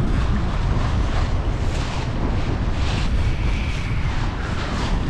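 Strong wind buffeting the microphone with a steady low rumble, over the hiss of surf on the shore.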